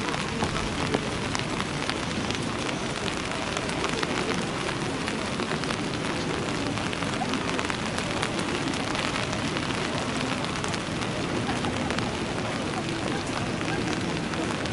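Steady rain falling, heard as an even hiss dotted with many small drop ticks.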